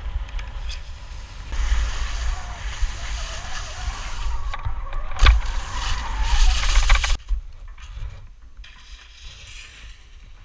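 Wind buffeting an action camera's microphone while skis slide and scrape over packed snow, with a sharp knock about five seconds in; the scraping hiss stops abruptly after about seven seconds, leaving a quieter wind rumble.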